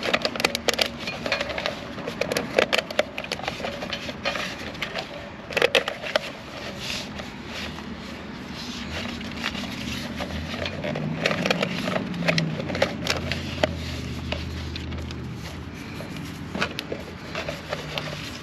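Plastic split wire loom crackling and clicking as it is worked over trailer-jack wiring, with a dense run of crackles in the first half. A low steady hum comes in around the middle and fades again.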